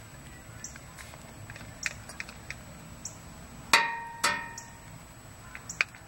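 Hand grease gun being worked on a driveshaft universal joint's grease fitting: scattered small clicks, then two sharp metallic clanks with a brief ring, about half a second apart, near the middle.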